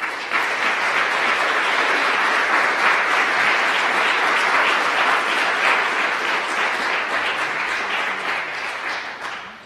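Audience applauding, the clapping starting at once, holding steady and dying away near the end.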